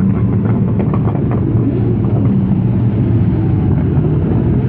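A procession of motorcycles riding past one after another, their engines running at a steady, deep note.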